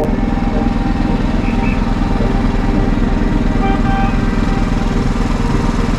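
Small engine of a miniature railway locomotive running steadily with a fast, even pulse as it pulls the train along.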